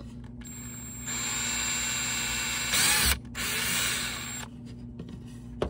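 Cordless drill running as its bit drills out a poorly printed screw hole in a 3D-printed plastic magazine part. It runs for about two and a half seconds, stops briefly, then runs again for about another second.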